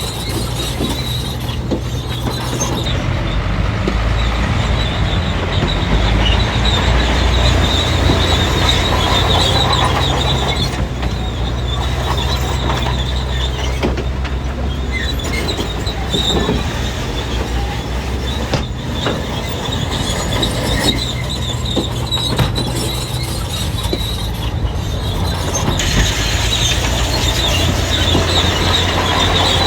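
Bulldozer's diesel engine running under load, its steel crawler tracks clanking and squealing as it pushes fill. The engine grows louder a few seconds in and again near the end.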